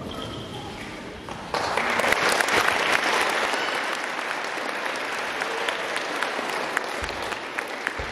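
Audience applauding, starting suddenly about a second and a half in as the music fades out.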